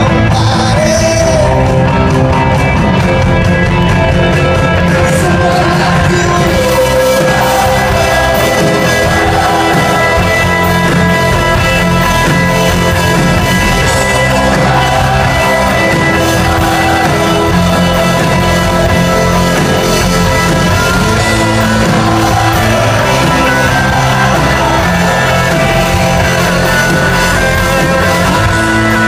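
Rock band playing live and loud, with electric guitars, bass and drums under a man's sung lead vocal, heard from the audience in a concert hall. The sound grows fuller in the upper range about six seconds in.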